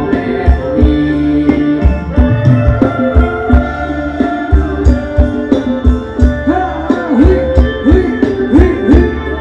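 Thai ramwong dance band music: a steady drum beat of about two strokes a second under a sustained melody, with repeated bending notes in the second half.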